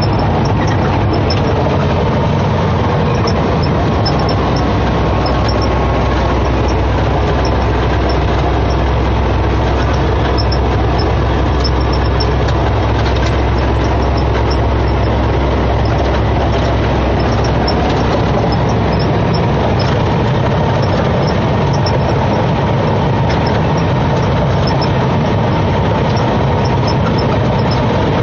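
Semi truck's diesel engine running at road speed, heard from inside the cab as a steady drone mixed with road noise.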